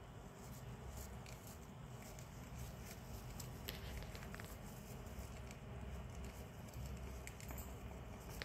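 Hamsters moving about in wood-shaving bedding: faint scattered rustles and small clicks over a low steady hum.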